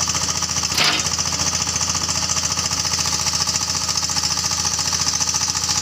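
A stationary engine running steadily with a fast, even beat. A single sharp knock comes about a second in.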